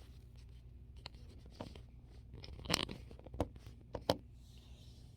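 Drying-rack parts and a small screw being handled during assembly: a few scattered light clicks and taps over a faint steady low hum.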